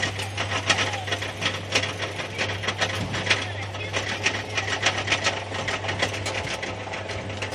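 Roller coaster train climbing the lift hill: the lift chain and anti-rollback ratchet clack in a rapid, uneven run of clicks over a low steady hum.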